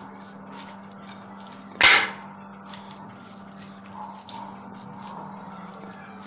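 A hand squishing and mixing rice with curry on a plate, with soft wet squelches and light taps against the plate, and one sharp, loud tap about two seconds in.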